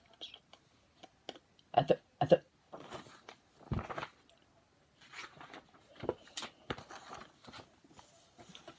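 A paperback picture book being handled and its pages turned: paper rustling and crinkling, with two sharp knocks about two seconds in.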